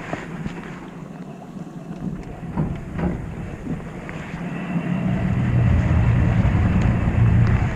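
Wind rumbling on the microphone aboard a fishing boat at sea, growing louder about five seconds in, with a few faint clicks.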